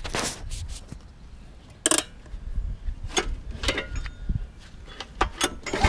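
Scattered clicks, knocks and rattles of a hand taking hold of a go-kart engine's recoil pull-start handle to start it, with one sharper knock about two seconds in; the engine is not running.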